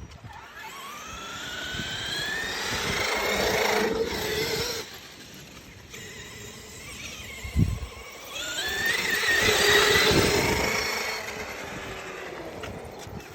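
Radio-controlled car's motor and gears whining, rising in pitch as it speeds up twice, the second run louder, with a short knock in between.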